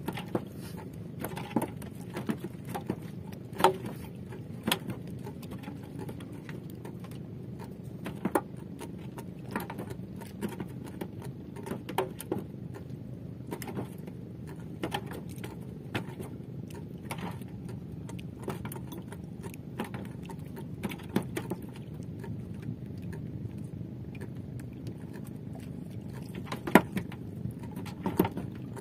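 Scattered light knocks and clicks as a long fishing line is handled over the side of a small wooden outrigger boat, over a steady low rumble.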